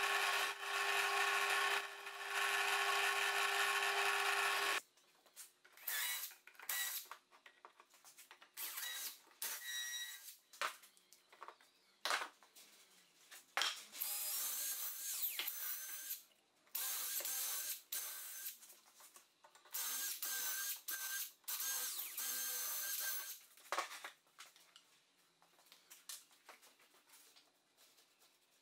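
A drill press runs steadily, boring into oak, and stops about five seconds in. Short knocks and clicks follow. Later a Makita 18V cordless drill with a long bit whines in several runs of a few seconds each, drilling into an oak frame.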